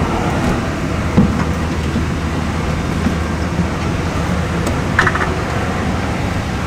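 Vehicle engine running, heard from inside the vehicle as a steady low rumble, with a couple of short knocks.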